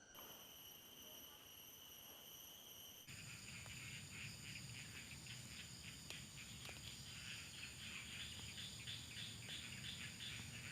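Faint chorus of crickets and other insects: several steady high-pitched whines, changing abruptly about three seconds in to a busier, rapidly pulsing chirping over a low rumble.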